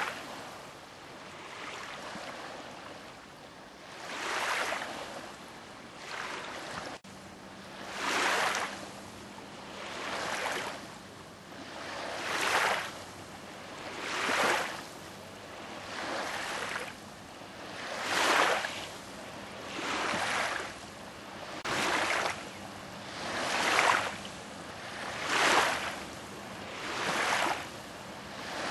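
Small lake waves washing in over a gravel shore, a wash about every two seconds.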